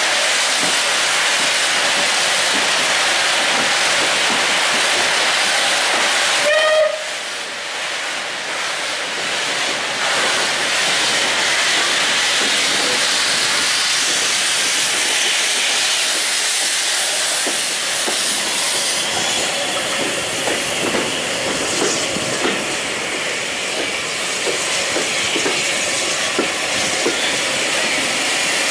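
Steam train heard from a carriage window as it runs through smoke and steam behind Bulleid Pacific 34092 City of Wells: a loud, steady rushing hiss of steam and running gear. A brief pitched note sounds about a quarter of the way in, and short clicks from the wheels on the rails come through in the second half.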